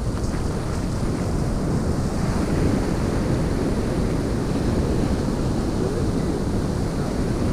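Ocean surf washing in over the shallows with foam, with wind buffeting the microphone.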